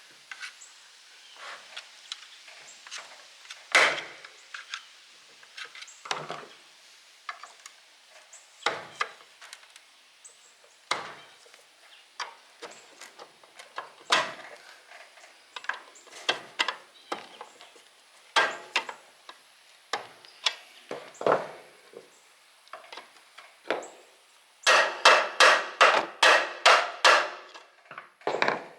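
Irregular knocks and clanks of tools on an old electric motor's parts, then near the end a quick run of about ten hard hammer blows, roughly three a second, on a bearing that is stuck tight on its shaft.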